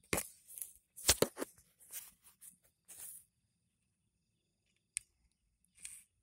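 Close rustling and crackling of dry grass and leaves being pushed through: a quick flurry of crisp rustles over the first three seconds, then two short ones near the end.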